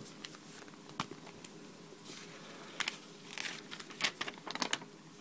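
Scattered light clicks and rustles of hands handling small plastic LEGO pieces and the paper instruction booklet, growing more frequent in the second half.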